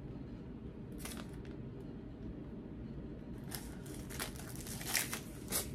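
Plastic or paper packaging on a MacBook Air box being torn and crinkled: a short crackle about a second in, then a run of sharper tearing and crinkling from about three and a half seconds on, over a low steady room hum.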